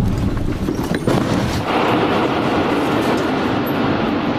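Large bomb explosion: a sudden loud blast, then continuing loud noise, with a sharp crack about a second in.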